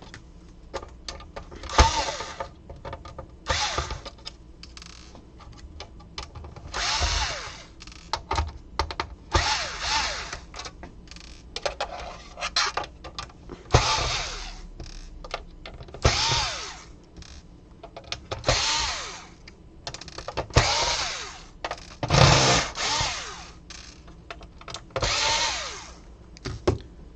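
Small electric screwdriver with a T8 security bit backing out screws from a PS4's casing, running in about a dozen short bursts of about a second each, with each run's pitch rising and falling. Small clicks and taps sound between the runs.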